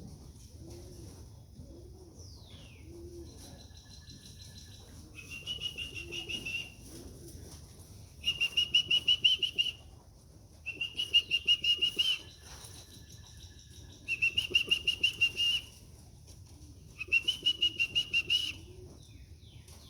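A trilling whistle blown in five short blasts of about a second and a half each, calling pigeons in to the trap. Pigeons coo low underneath in the first few seconds.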